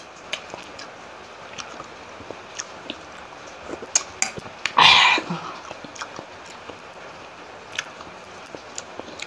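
Close-up mouth sounds of a person eating: wet chewing and lip-smacking with many small clicks. About five seconds in there is a single short, louder hissing noise.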